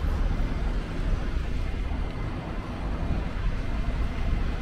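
Steady low rumble of city street noise, mostly motor traffic.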